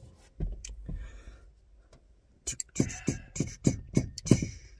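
A rapid, even thumping beat, about four to five beats a second, starting about halfway through.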